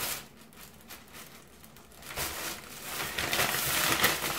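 Thin plastic carrier bag crinkling as it is handled and pulled up off a paper takeout bag. A short rustle at the start, then about two seconds in a louder, continuous crinkling.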